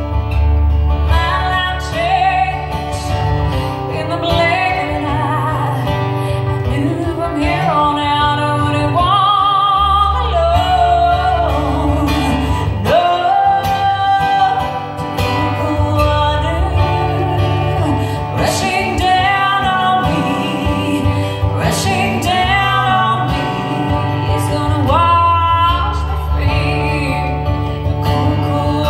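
Live acoustic song: a woman singing lead with vibrato into a microphone, over a steadily played acoustic guitar.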